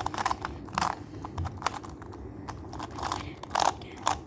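Plastic Skewb puzzle being turned by hand in quick succession: an irregular run of sharp clicks and clacks, each twist of the corner-turning puzzle snapping into place.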